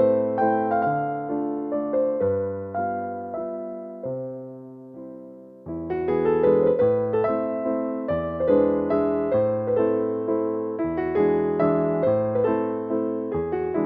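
Background music: gentle solo electric piano playing a slow melody with chords, each note struck and fading, with a brief lull about five seconds in.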